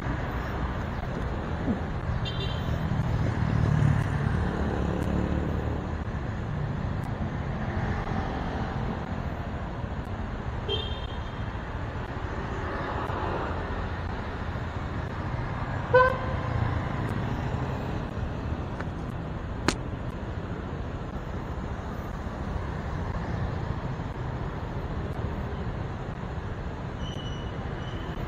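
City street traffic rumble with engines running and vehicles passing, and a single short vehicle horn toot about halfway through.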